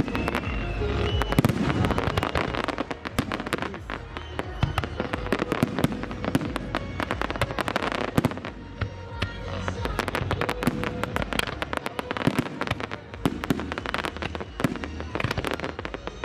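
Aerial fireworks display: shells bursting overhead, with a dense, rapid crackle of popping stars throughout and heavier booms in the first couple of seconds.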